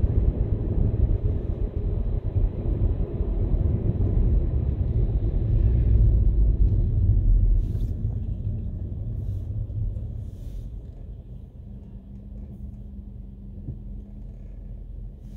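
Low road rumble of a car driving, loudest a few seconds in. It fades as the car slows to a stop in traffic, leaving a quieter steady hum from the idling car.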